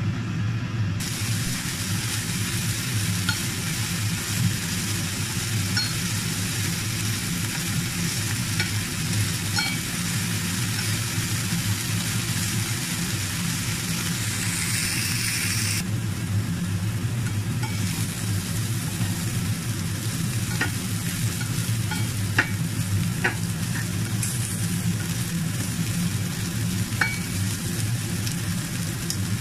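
Peeled prawns frying in oil in a nonstick frying pan, a steady sizzle that grows louder about a second in, over a steady low hum. Near the end a few sharp clicks come as a spatula turns the prawns.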